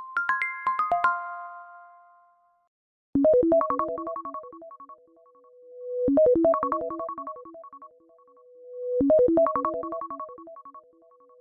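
iPhone ringtones from iOS 17 playing: a short run of bright chime notes that rings out, then a second ringtone, a quick melodic phrase of notes that repeats three times about every three seconds, with a held tone swelling into each repeat.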